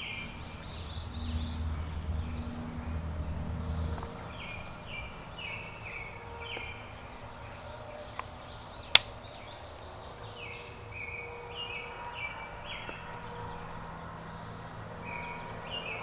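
Songbirds singing repeated short chirping phrases over a quiet forest background, with a single sharp click about nine seconds in.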